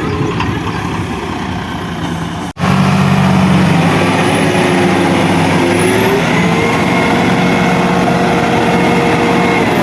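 A truck engine running steadily. The sound drops out for an instant about two and a half seconds in. Around six seconds in the engine's pitch rises a little and a high whine comes in and holds steady.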